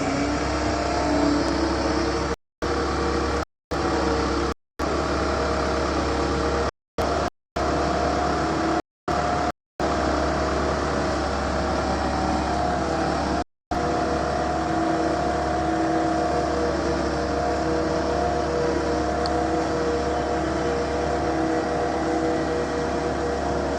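Road roller engine running steadily with an even hum, the sound cutting out to silence briefly several times in the first half.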